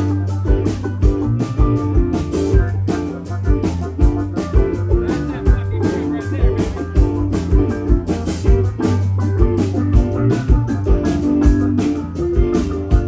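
Live rock band playing an instrumental jam: electric guitar lead over acoustic guitar, bass guitar and drum kit, with a steady beat.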